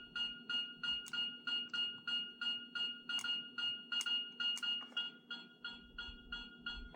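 Bandai Proplica Sailor Moon Moon Stick toy playing an electronic sound effect from its built-in speaker: a rapidly pulsing tone, about four pulses a second, over a steady low hum.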